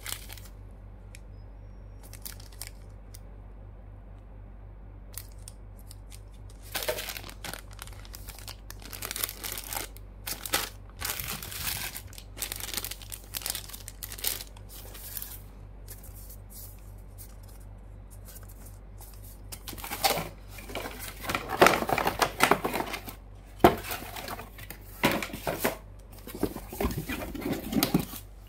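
Clear plastic accessory bags crinkling and rustling in irregular bursts as they are handled and pulled open. Quiet for the first several seconds, the crinkling starts about a quarter of the way in and is loudest in the last third.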